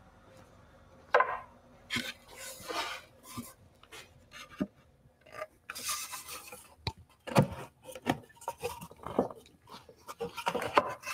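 Plywood test piece being worked into a freshly cut dado for a fit check: irregular knocks and scrapes of wood on wood, starting about a second in.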